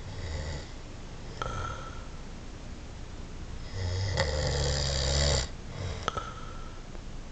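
A person snoring, several snores in a row, the loudest and longest one from about four to five and a half seconds in.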